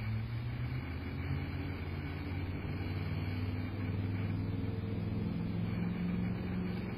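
Steady low mechanical hum, with a few low tones whose pitch drifts slowly up and down.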